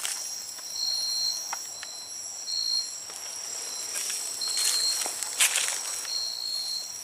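Night-time tropical forest insect chorus: several steady high-pitched trills, with a higher tone that switches on and off every second or so. Footsteps shuffle and crunch in dry leaf litter, loudest about four to five seconds in.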